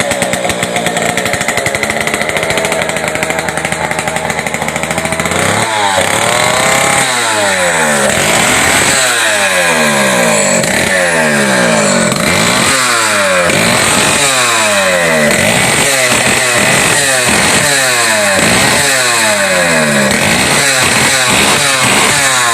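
Two-stroke chainsaw engine running with no guide bar or chain fitted, as a test of engine strength. It holds a steady speed for about the first five seconds, then is revved up and down over and over in quick throttle blips.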